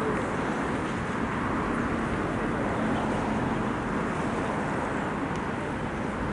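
Steady outdoor background noise, a low rumble and hiss with no distinct events.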